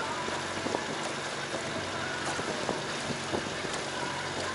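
Boat engine running steadily at low speed, a low even hum under a haze of wind and water noise, with a few faint clicks.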